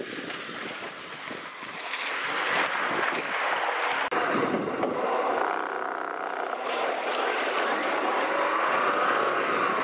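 Lada Niva engine running under load as the 4x4 climbs a steep muddy slope, its pitch wavering up and down and the sound growing louder after about two seconds.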